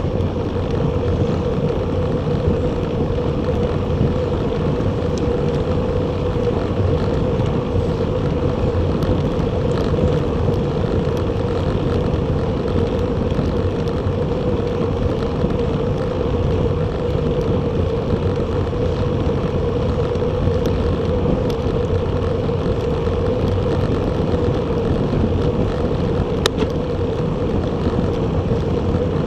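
Steady wind and road rush from riding a Bacchetta Corsa recumbent bicycle at speed, picked up by a handlebar-style action camera, with a constant mid-pitched hum running through it.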